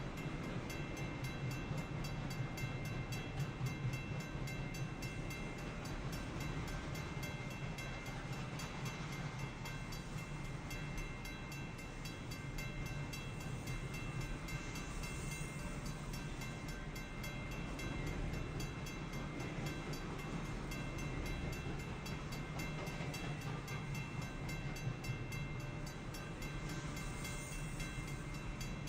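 Intermodal freight train's cars rolling past a grade crossing with a steady low rumble of wheels on rail, while the crossing bell rings on with quick, even strokes.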